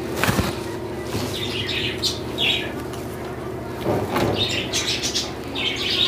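Welded wire mesh rattling and scraping against the plastic table frame as it is handled and tied on with binding wire, with a sharp knock just after the start and several short bursts of rattling.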